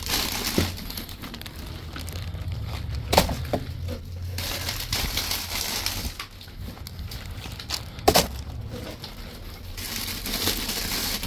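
Plastic candy wrappers and cardboard Peeps boxes rustling and crinkling as a gloved hand rummages through them, with a couple of sharp knocks, one about three seconds in and one about eight seconds in.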